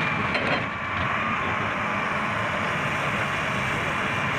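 Hitachi 310 hydraulic excavator running steadily under load as it swings between the dump truck and the rock face, with a steady high whine over the engine. There is a brief clatter just after the start.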